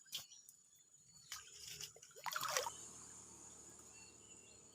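Water splashing and dripping as a bubu fish trap is lifted and handled at the water's edge, with a couple of sharp knocks early on and a louder splash a little past the middle.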